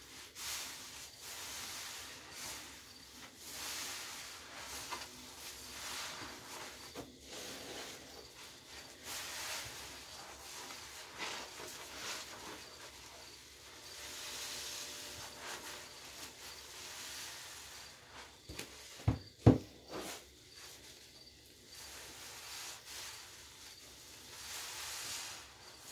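Rubber-gloved hands squeezing and kneading wet sponges in a basin of Ajax Key Lime with Baking Soda lather: soft squelching and foamy hiss that swells and fades every second or two. Two sharp knocks come close together about two-thirds of the way through.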